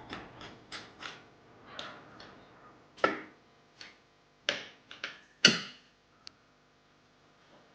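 Irregular sharp clicks and knocks of hard computer parts being handled and fitted, about a dozen, the loudest about three, four and a half and five and a half seconds in.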